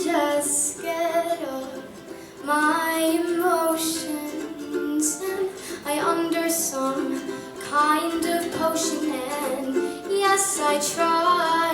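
A young girl singing a song in phrases with short breaks, accompanied by a plucked string instrument.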